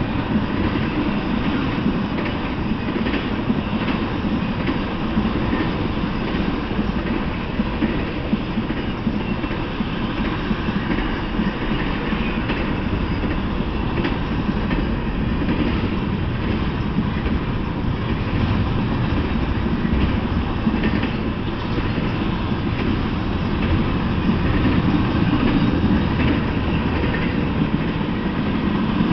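Intermodal freight train of double-stacked containers and trailers on flatcars rolling steadily past: a continuous low din of steel wheels on rail, with faint clicks scattered through it.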